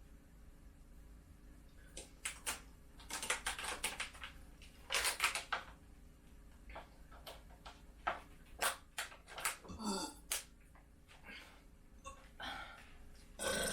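Scattered light clicks, taps and rustles of objects being handled, coming in clusters, with one short rising squeak about ten seconds in.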